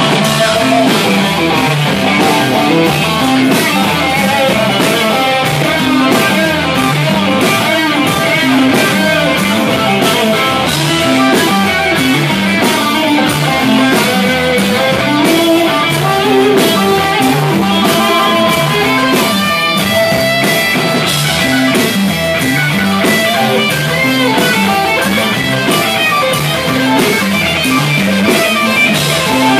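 Live rock band playing loud: electric guitars, bass guitar, violin and drum kit together over a steady, driving drum beat.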